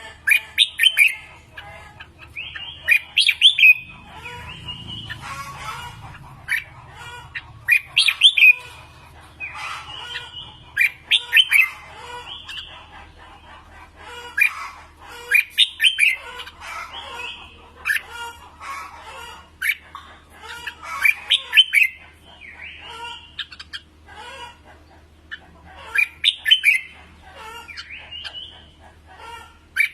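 Red-whiskered bulbuls singing: loud, quick warbled phrases repeat every two to three seconds, with softer chattering notes in between.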